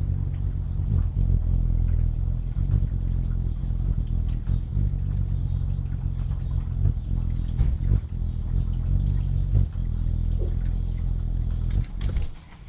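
A hummingbird's wings humming low and steady as it hovers close, feeding at a nectar feeder. The hum stops suddenly near the end as the bird flies off.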